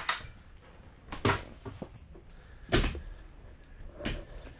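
Three hard knocks in a boat's cockpit, about a second and a half apart, the middle one the loudest.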